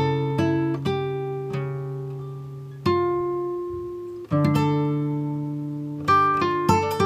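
Background music: slow acoustic guitar, single plucked notes and chords left to ring out.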